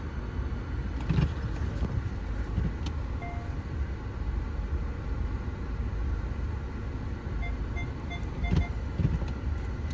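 Car running with a steady low road and engine rumble. A brief electronic tone sounds about three seconds in, and a quick run of about six short beeps comes near the end.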